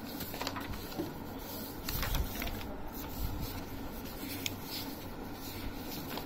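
Large chart-paper sheets rustling and flapping as they are turned over one after another, with a few soft taps of paper.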